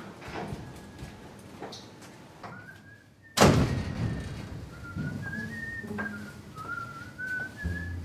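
A man whistling a slow tune in short held notes that step up and down. A single loud bang comes about three and a half seconds in, just after a first whistled note.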